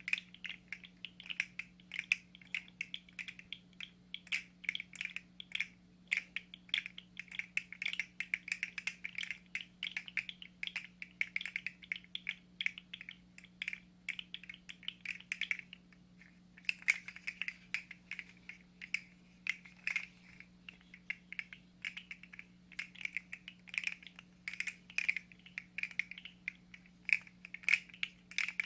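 Plastic segments of a 3D-printed fidget slug clicking and rattling against each other as it is flexed and fidgeted, in quick irregular runs with a short pause about halfway through, over a steady low hum.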